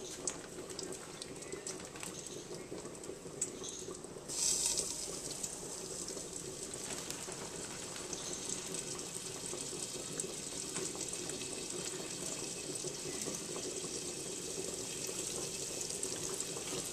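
Floured pork chops frying in hot oil in a skillet. A light crackle in the oil gives way to a sudden loud sizzle about four seconds in as the chops go in, then a steady, busy sizzle.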